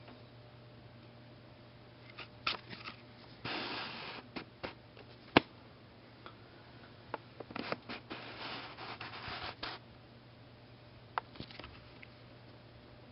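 Scattered rubbing and scraping noises in two stretches, with a few sharp clicks between them, the loudest about five seconds in.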